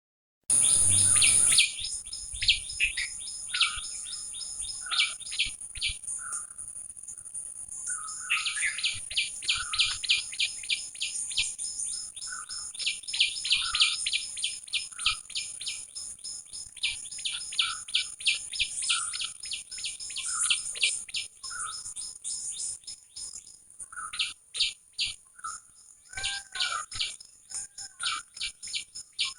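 Small birds chirping in fast runs of short, high notes, several a second, with lower single calls about once a second and a steady high-pitched drone behind them. A brief loud rush of noise comes in the first second or two.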